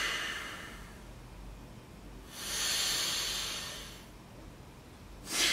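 A person breathing forcefully through the nose with one nostril pressed shut by a finger, doing one round of pranayama breathing. There is a short sharp breath at the start, a longer swelling breath of about two seconds in the middle, and another sharp breath at the end.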